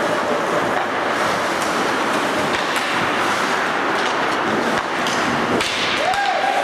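Steady, noisy ice-rink sound during live hockey play, with a few faint clicks from sticks and puck.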